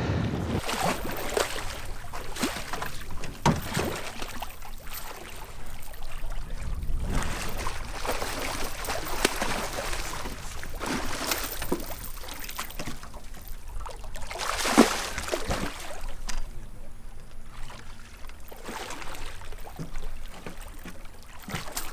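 A big blue catfish splashing at the surface beside a boat as it is played to the net, with water sloshing against the hull. The splashes come irregularly; the sharpest comes about fifteen seconds in.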